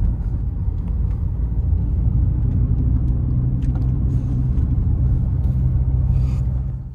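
A car driving, heard from inside the cabin: a steady low rumble of engine and road noise that cuts off at the very end.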